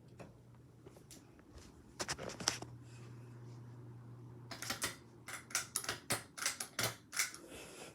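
Ceiling fan with a low steady hum, overlaid by light, irregular clicks and rattles: a short cluster about two seconds in, then a quicker run through the second half.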